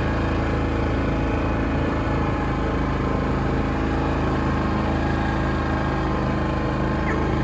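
Yamaha Grizzly 700 ATV's single-cylinder four-stroke engine running at a steady, even speed, with no revving.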